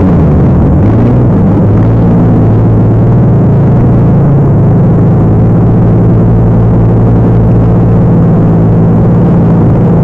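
Loud off-road truck engine running steadily. Its pitch drops at the start, then holds.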